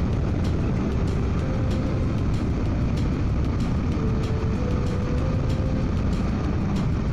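Suzuki V-Strom 800DE's parallel-twin engine running steadily at cruise, with wind and road noise, heard through a microphone inside the rider's helmet.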